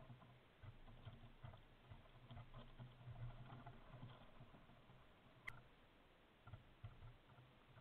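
Near silence: faint ticks and rustles of jackdaws foraging in grass, with one sharp click about five and a half seconds in.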